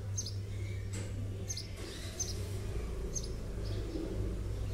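A small bird chirping in the background: short, high calls repeated every second or so, over a steady low hum.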